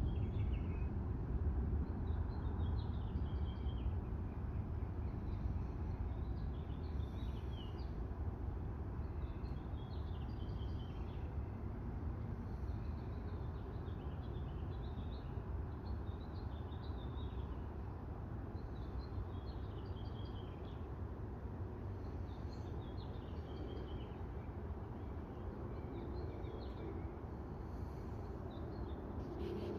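Birds chirping in short calls every second or two over a steady low background rumble that slowly fades.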